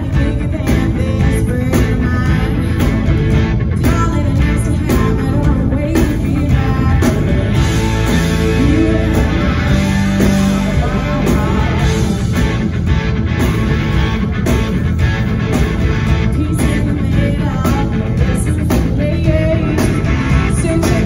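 Live rock music: a woman singing into a microphone over electric guitar, with steady beats running through.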